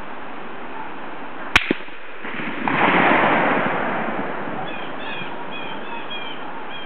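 A single .308 rifle shot from a Savage 110 Predator: a sharp crack about one and a half seconds in, then a rolling rumble that swells and dies away over about two seconds. Birds chirp briefly afterwards.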